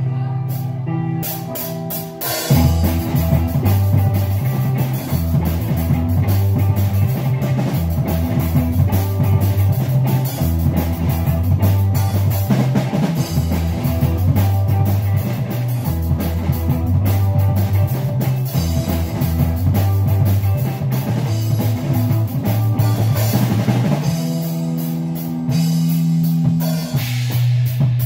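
Live four-piece rock band playing an instrumental passage on electric guitars, bass guitar and drum kit. The drums come in about two seconds in, drop out for a few seconds near the end leaving guitars and bass, then come back.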